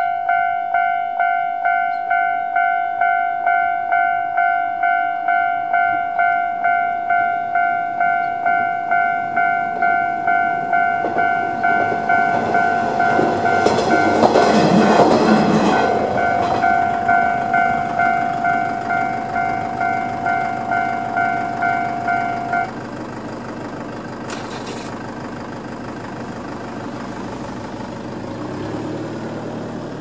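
Japanese level-crossing alarm ringing its standard electronic ding, about two strikes a second, while a Kanto Railway KiHa 5000 diesel railcar passes over the crossing, loudest about halfway through. The alarm cuts off suddenly about three-quarters of the way through, leaving quieter road traffic, with a vehicle passing close near the end.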